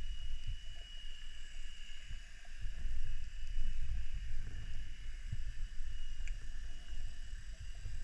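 Underwater ambience picked up by an action camera in its waterproof housing: a muffled, uneven low rumble of water, with a faint steady high tone and a few small ticks.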